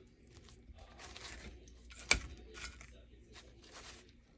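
Faint rustling of paper towel as fried mackerel are lifted off it and laid on a glazed clay plate, with one sharp click about halfway through.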